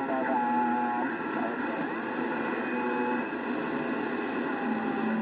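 Citizens band radio reception on 27.005 MHz (CB channel 4) from a Yaesu HF transceiver's speaker: steady radio noise with faint, garbled voices and a few steady whistle tones.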